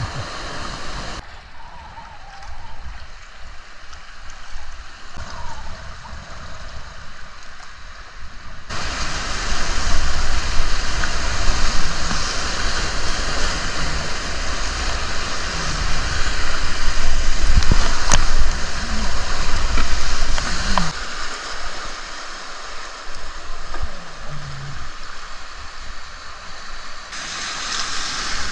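River whitewater rushing as a steady roar, much louder for about twelve seconds in the middle, with abrupt jumps in level where the sound changes.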